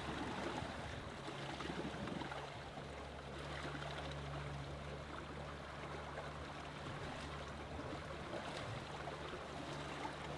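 Water rushing and splashing along the hull of a sailing yacht under sail, with wind noise, and a low steady hum that comes in about a second in.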